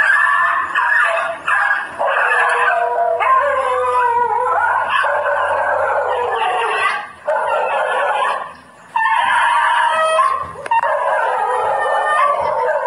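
A dog yelping and howling in pain, the distress cries of a dog being shot. The cries run on almost without pause, wavering up and down in pitch, with a short break about eight seconds in.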